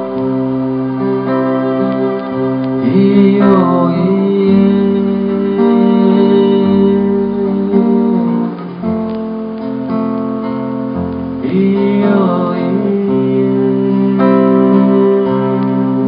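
A man singing a slow song over his own acoustic guitar, which holds ringing chords throughout. His voice comes in with sliding phrases about three seconds in and again around twelve seconds.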